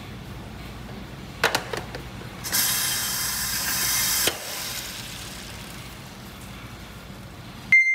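Stainless steel lid clattering onto a tofu pressing box with a few sharp metal clicks, then a loud hiss of air lasting nearly two seconds that stops with a click as the press is worked. A short metallic ping near the end.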